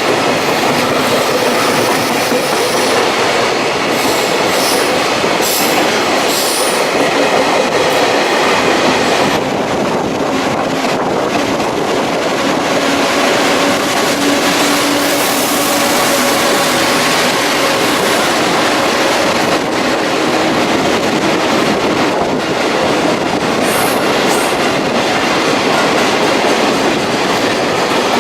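A long JR freight train rolling past at speed: a loud, steady rush of steel wheels on rail, with occasional clicks of wheels over rail joints.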